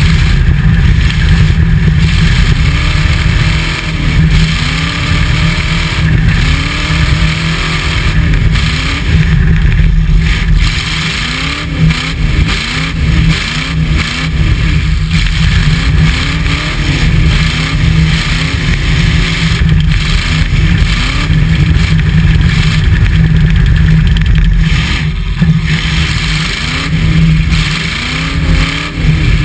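Demolition derby pickup truck's engine, heard from inside the cab, revved hard up and down over and over, its pitch rising and falling about once a second for long stretches over a heavy low rumble.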